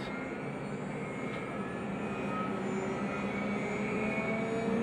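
Ultimate Bee CNC router running with its spindle spinning, not yet cutting the aluminum: a steady hiss with faint tones that creeps slightly louder.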